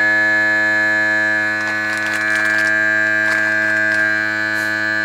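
Vacuum sealer's pump running with a steady buzzing hum as it draws the air out of a long storage bag.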